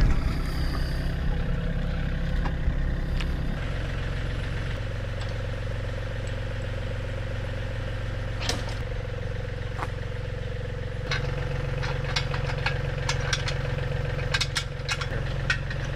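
Compact John Deere tractor's diesel engine idling steadily. From about halfway on, sharp metal clicks and clanks come from work at the three-point hitch.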